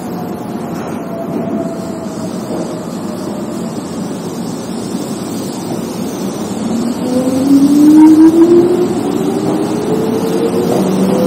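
Keihan electric train running, with a tone that falls early on, then a rising motor whine about two-thirds of the way through as the train picks up speed, getting louder.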